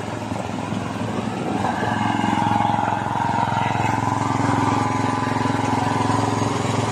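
A small engine running steadily on board an outrigger fishing boat, growing a little louder about two seconds in.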